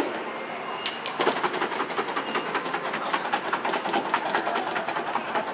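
Rapid, even rattling clatter of cut food being shaken and tossed in a stainless-steel mixing bowl. It starts about a second in and runs at many strokes a second.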